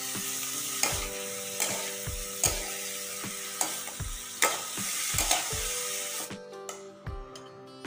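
Bean sprouts and carrot strips sizzling in a hot metal wok while being stir-fried with a metal spatula, which scrapes and clinks against the pan at irregular intervals. The sizzling cuts off suddenly about six seconds in.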